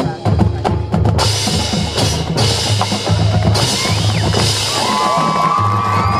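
Marching band drumline playing a loud drum passage: snare drums with low bass-drum notes, and bright cymbal-like washes from about a second in. Held wind-instrument tones come in near the end.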